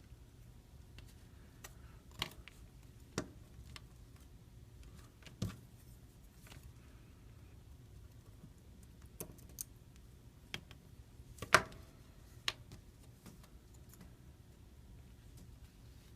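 Scattered small clicks and taps of repair tools and parts being handled during phone reassembly, about eight in all, the loudest a sharper knock about two-thirds of the way through, over a faint steady low hum.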